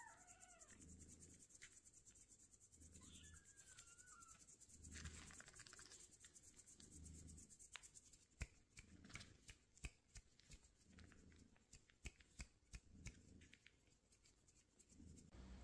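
Near silence, with two faint kitten mews in the first few seconds and faint, irregular small clicks in the second half.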